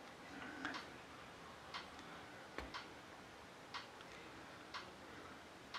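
A clock ticking faintly and evenly, about once a second. Light handling of small metal gun parts is heard with it, including a soft knock about two and a half seconds in.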